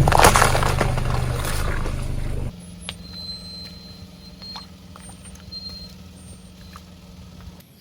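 Car engine running under a loud crackling and crunching as a tyre rolls over and crushes objects; about two and a half seconds in it cuts to a quieter steady engine hum with a few small clicks.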